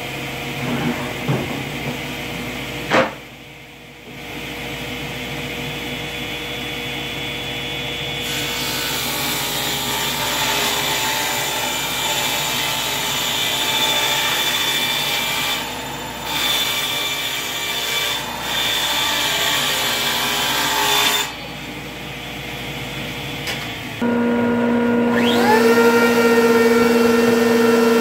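A table saw running and ripping plywood, with a sharp knock about three seconds in. Near the end the saw stops and a router starts, its pitch rising as the motor spins up before it runs steadily.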